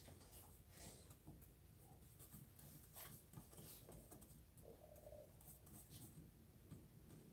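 Faint scratching of a paintbrush dragging and dabbing oil paint across a painting panel, a soft stroke every second or so over quiet room tone.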